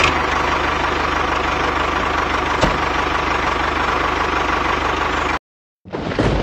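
Tractor engine sound effect running steadily with a fast low throb. It cuts off abruptly about five seconds in, and a different rumbling sound begins just before the end.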